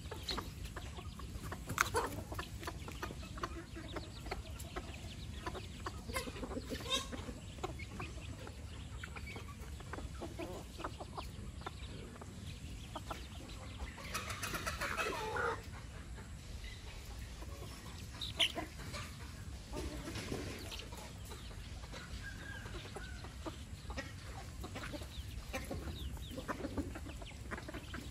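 A flock of chickens clucking as they forage, with a louder, longer call about halfway through.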